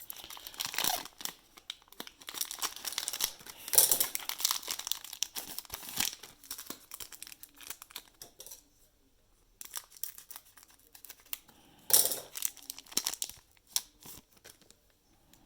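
Plastic trading-card pack wrappers crinkling and tearing as basketball card packs are opened and handled. The crinkling is busy for the first half, then comes in scattered bursts, with a loud one about twelve seconds in.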